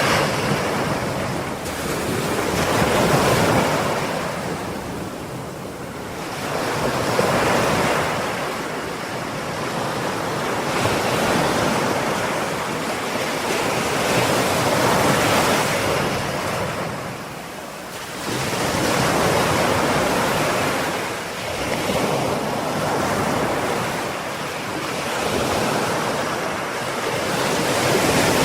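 Ocean waves breaking and washing on the shore, the surf swelling and ebbing in slow surges every few seconds, with some wind on the microphone.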